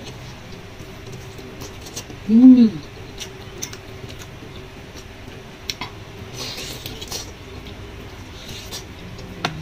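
Close-up eating sounds: chewing and small utensil clicks, with a brief hissing slurp about six and a half seconds in. The loudest sound is a short hum of the voice, rising then falling in pitch, about two and a half seconds in.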